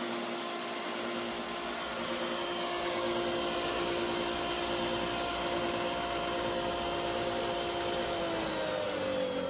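Electric chop saw motor running free with no cut, a steady whine; about eight seconds in the pitch starts to fall as the blade winds down.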